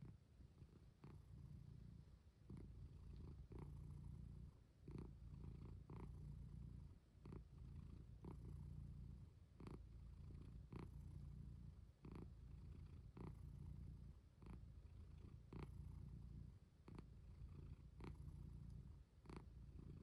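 Sleeping pet snoring softly: a low rumble broken by short pauses every two to three seconds, with small clicks.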